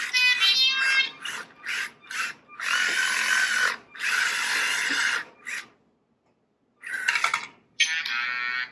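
Lego Mindstorms Robot Inventor 'Charlie' robot running its dance routine: a series of short electronic robot sounds and whirring bursts, with a pause of about a second near the end before the sounds start again.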